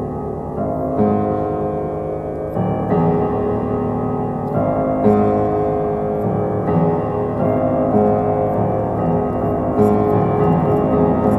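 Piano music with sustained chords that change about every two seconds.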